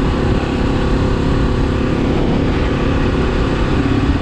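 2016 Beta 500 RS single-cylinder four-stroke dirt bike engine running steadily while being ridden on the road, with wind rumble on the microphone.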